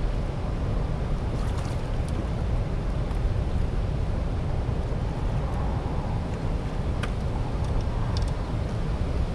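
Steady roar of churning water in the dam's outflow, mixed with wind buffeting the microphone.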